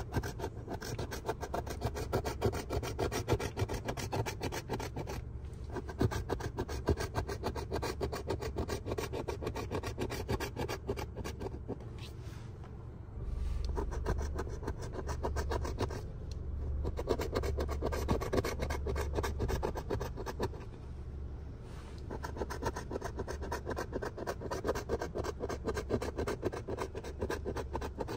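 A coin scraping the coating off a scratch-off lottery ticket: long runs of rapid back-and-forth scratching strokes, broken by a few short pauses. A low rumble sits underneath and grows louder from about halfway.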